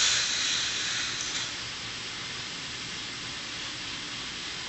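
Micro K'nex roller coaster train rolling along its plastic track and coming to rest: a brief rushing rattle with a couple of light clicks about a second in, then a steady hiss.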